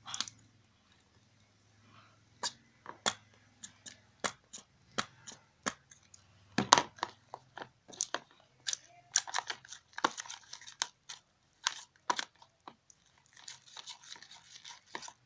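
Slime dough being worked with added water: irregular sticky clicks and pops, about two a second at first, thickening into denser crackling in the middle and again near the end.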